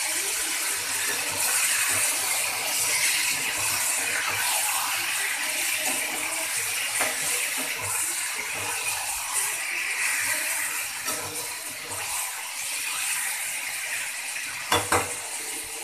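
Marinated chicken liver and onions sizzling in hot oil in a kadhai while a metal spatula stirs and scrapes the pan, with a couple of sharp knocks of the spatula against the pan near the end.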